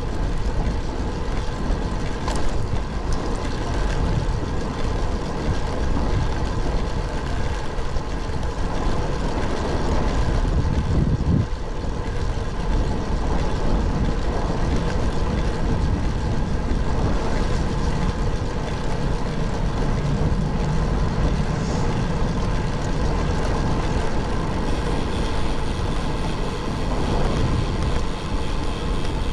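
Wind rushing over the microphone of a camera on a moving road bike, mixed with tyre and road noise: a steady low rush that swells briefly about eleven seconds in.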